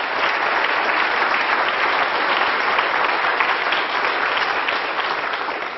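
Audience applauding: a steady round of many hands clapping that begins to die down near the end.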